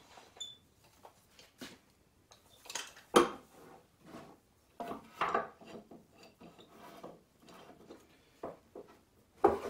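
Wooden handscrew clamp being worked and set against a board on a wooden workbench: a string of separate hard wooden knocks and clunks, the loudest a little over three seconds in and another near the end.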